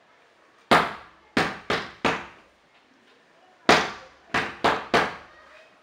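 Two runs of sharp knocks, each a single knock followed by three quicker ones, the second run about three seconds after the first.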